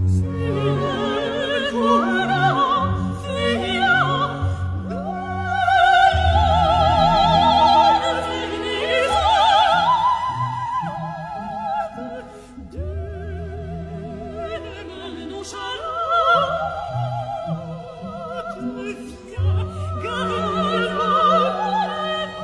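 Background music: a solo voice singing in an operatic style with wide vibrato, over orchestral accompaniment with sustained low notes.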